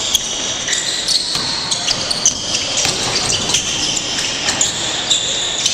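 Basketball game play: a ball bouncing on the court and short high sneaker squeaks, with players' voices.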